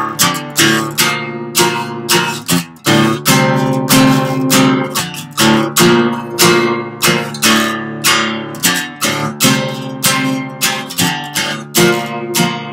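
Acoustic guitar strummed in a steady rhythm, chords ringing between the strokes, with no singing.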